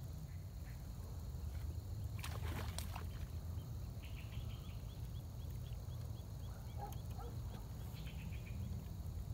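Outdoor riverbank sound: a steady low rumble, a brief noise about two seconds in, and a regular run of short high chirps, about three a second, from about four seconds in to near the end.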